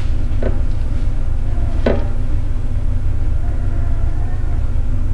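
Steady low rumble with two light knocks, about half a second and two seconds in.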